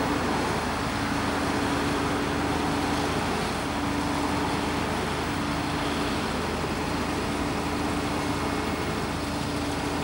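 Steady road traffic noise with a truck's engine humming underneath; a work truck passes at the start.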